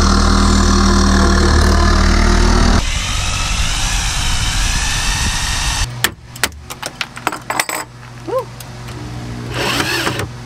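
Corded power tool cutting into a fiberglass boat deck, a loud steady hum, changing to a rougher noise after about three seconds. From about six seconds, a string of sharp clicks and knocks with a brief squeak, then a corded drill runs briefly near the end, drilling through a plastic rod holder.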